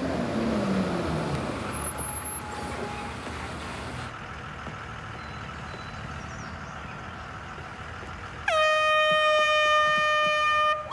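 A bus engine rumbles. About two and a half seconds before the end, a blue plastic horn is blown into the driver's ear in one long, loud, steady blast.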